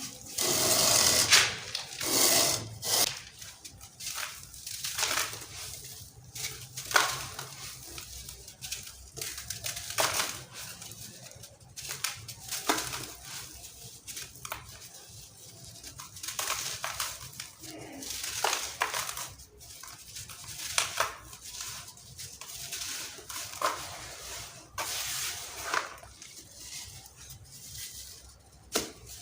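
Chunks of sand-cement being crushed and crumbled, giving irregular crisp crunches and crumbling grit, loudest in the first few seconds.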